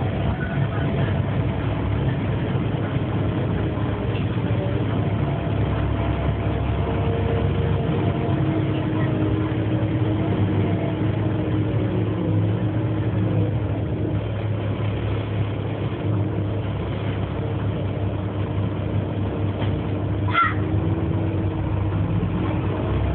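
Cabin ride noise inside a Wright StreetCar on a Volvo B7LA chassis under way: a steady rumble of diesel engine and road, with a faint whine that drifts up and down in pitch. A brief sharp click or squeak comes near the end.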